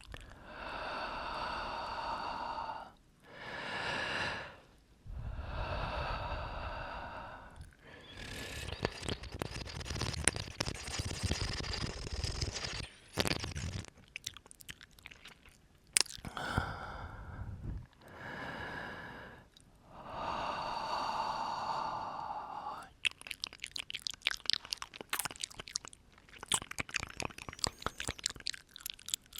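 Close-up breathing into the microphone: a series of long breathy exhales, each lasting a second or a few seconds. About two-thirds of the way through, these give way to a rapid run of wet mouth clicks and smacks.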